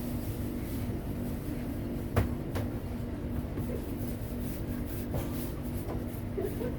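Steady hum of kitchen machinery with a few light clicks and a sharp knock about two seconds in, followed by a lighter one.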